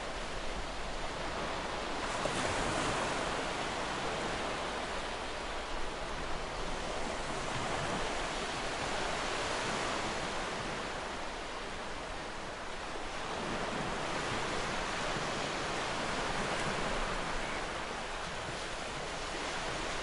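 Ocean surf lapping onto a sandy beach: a continuous rush of water that swells and eases over several seconds as each wave comes in and draws back.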